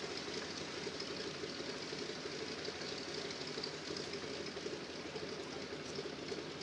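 Zero fighter's Pratt & Whitney radial engine running steadily at idle, the aircraft chocked and stationary.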